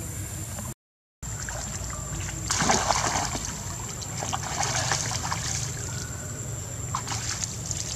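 Water splashing as one macaque pushes another down into shallow muddy water and it struggles. The splashing is loudest about two and a half seconds in, then goes on in smaller splashes.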